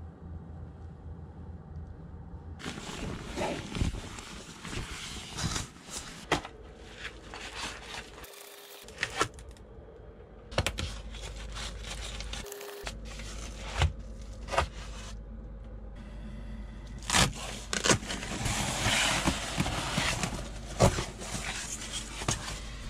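Foil-faced bubble-wrap insulation covers being handled and pulled off camper windows: crinkling and scraping, with several sharp knocks and clicks.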